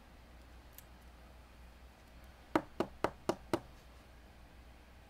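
Five quick, sharp knocks on a hard surface, about four a second, in the middle of a quiet stretch.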